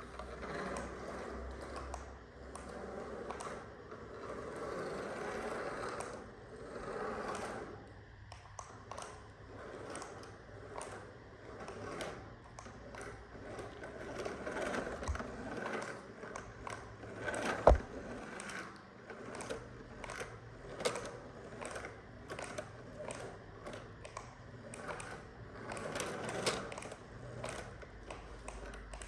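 Small electric motors and plastic gears of toy RC vehicles whirring in swells, with many small plastic clicks and knocks. One sharp knock comes about two-thirds of the way through.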